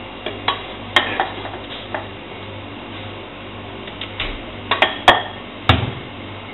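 Scattered clinks and knocks of a glass bowl against a stainless-steel stand-mixer bowl as flour is tipped in and the glass bowl is set down, about eight in all, the loudest near the end, over a steady low hum.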